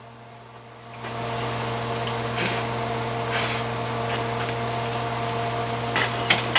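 A steady mechanical whirring hum, like a small electric motor, starts about a second in and runs on evenly, with two short clicks near the end.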